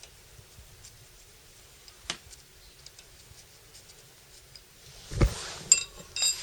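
Scattered light clicks, then a thump a little after five seconds and two short metallic clinks that ring briefly: metal tools or parts being handled.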